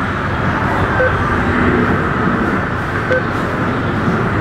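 Two short electronic beeps from an ATM's buttons as they are pressed, about two seconds apart, confirming a withdrawal amount. A steady rushing background noise runs underneath.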